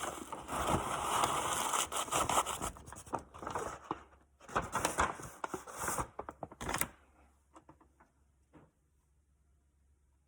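Gasket-kit packaging being torn open and crinkled, a run of tearing and rustling with sharp crackles that stops about seven seconds in, followed by a couple of faint ticks.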